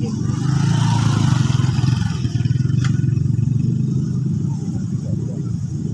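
Motor vehicle engine running steadily with a low rumble, a little louder through the first few seconds, with a short click about three seconds in.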